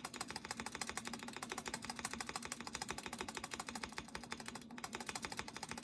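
Stabilized long keys on a mechanical keyboard fitted with stock, dry Akko screw-in stabilizers, pressed rapidly over and over: a fast, even clatter of key clicks. The unlubricated stabilizers give the unpleasant sound typical of unlubed stabs.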